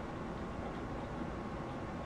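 Steady background hiss with a faint, even high hum running through it; no distinct knocks, clicks or other events stand out.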